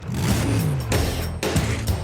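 Opening theme music of the show, loud with a strong, regular beat.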